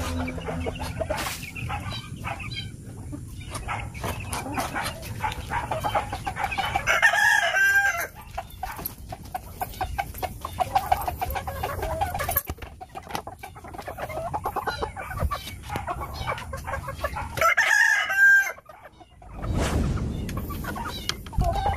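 Backyard chickens clucking, with a rooster crowing twice: once about a third of the way in and again near the end.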